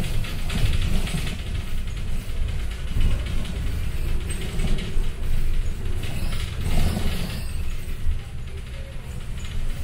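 Cabin noise inside a moving city bus: a steady low engine and road rumble with rattling of the bus's body and fittings, easing slightly as the bus slows near the end.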